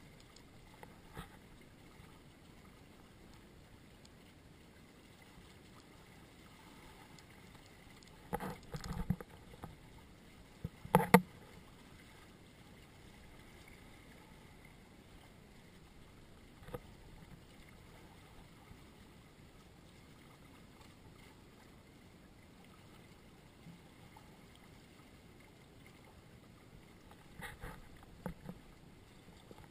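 Water washing against the hull of a Hobie Cat catamaran under sail, a quiet steady wash broken by a few sudden louder hits, the loudest about eleven seconds in and a small cluster near the end.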